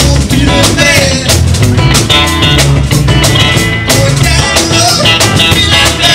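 Rock band playing, with a drum kit keeping a steady beat under bass and electric guitar.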